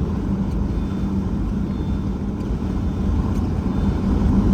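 Steady low rumble of the Dominator storm-chasing vehicle driving, engine and road noise heard inside the cabin, with a steady hum running under it.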